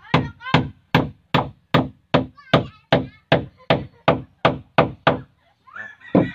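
Claw hammer driving a nail into a wooden batten on a boat's frame: about two and a half blows a second, each ringing briefly. The hammering stops about five seconds in and voices follow.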